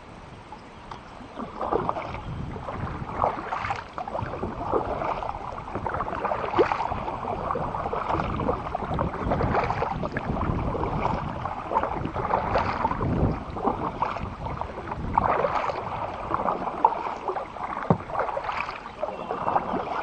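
A kayak running through fast creek water: water rushing and splashing around the hull, with many irregular, uneven splashes.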